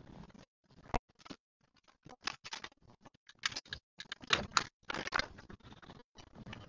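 Irregular clicks, taps and scratchy rustles close to the microphone, coming in clusters with short silent gaps between them.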